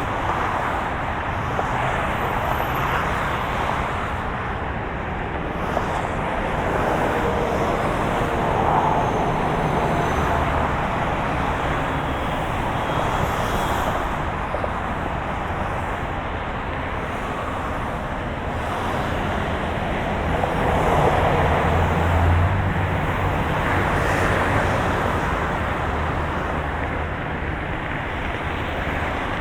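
Road traffic: a steady wash of cars passing, tyre and engine noise, with low engine rumble swelling as heavier vehicles go by about a third of the way in and again about two-thirds through.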